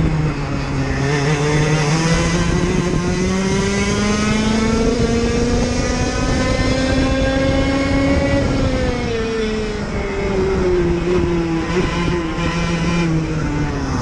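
IAME KA100 100cc two-stroke kart engine heard onboard, its pitch climbing steadily for about eight seconds as it pulls down a straight, then falling away as the driver lifts off for a corner and running at lower revs through it, with wind rush over the microphone.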